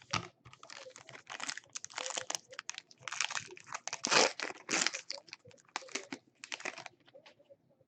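Plastic packaging on a trading-card box being torn open and crinkled by hand: a dense run of rustles and crackles that stops shortly before the end.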